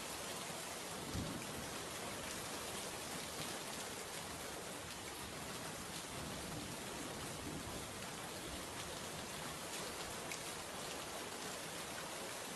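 Steady rain: an even hiss with scattered faint drop ticks, and one brief low thud about a second in.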